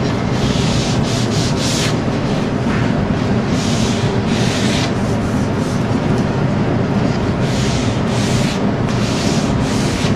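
Hand sanding with an abrasive sanding sponge, scuff-sanding a dried vinyl sealer coat on a wooden drawer front: separate hissing strokes of about a second each, over a steady low rumble.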